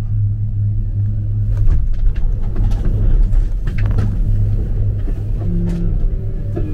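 Detachable gondola cabin rolling into a station: a steady low hum with scattered knocks and rattles as the cabin runs off the cable onto the station rail and through the deceleration tyres.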